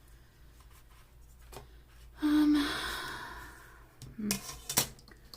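A woman sighs about two seconds in: a brief hum, then a long breathy exhale that fades away. Near the end comes a short murmur and a sharp click.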